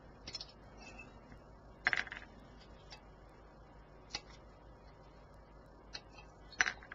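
Light plastic clicks and taps of a styrene model kit sprue being picked up and handled over a cutting mat: scattered single ticks, the loudest about two seconds in and just before the end.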